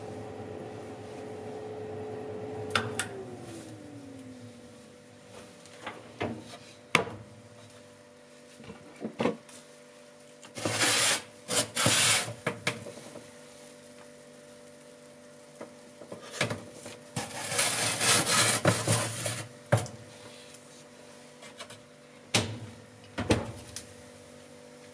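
An oven's running hum winds down in a falling tone about three seconds in, as when the oven is switched off. Scattered clicks and knocks and two longer bouts of scraping and rubbing follow, as the oven door and baking tray are handled.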